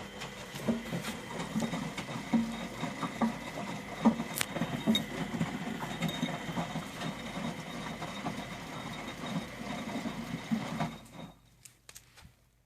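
Washing machine running, with dense rattling and clicking over a faint steady whine; it stops about eleven seconds in, leaving a few scattered clicks.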